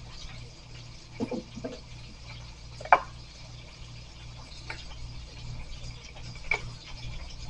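A few light knocks and taps of a small knife and jalapeño pieces on a plastic cutting board, the sharpest a click about three seconds in as the knife is set down, over a steady low hum.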